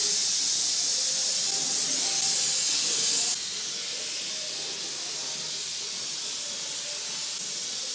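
Oxy-fuel welding torch flame hissing steadily as it heats a steel bicycle frame joint held in a jig. The hiss drops abruptly to a lower level about three seconds in and carries on.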